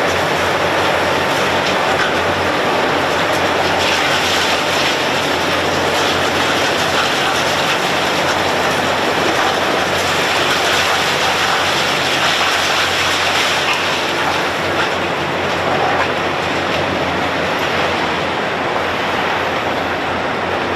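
Heavy machinery running with a loud, steady, dense mechanical noise and a low hum underneath.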